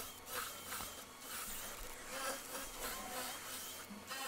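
Cordless drill with a long bit boring through stacked timber beams, heard as a faint buzzing whir.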